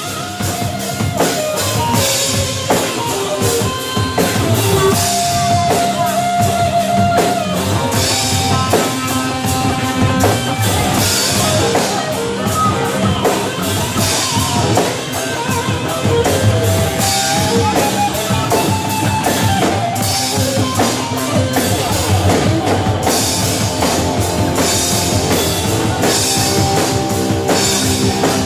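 A live rock band playing: electric bass and electric guitar over a drum kit, loud and steady, with regular drum hits.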